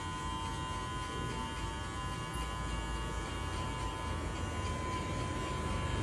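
Cordless electric hair clipper running with a steady hum while it trims short hair on the side of the head, blending a skin fade.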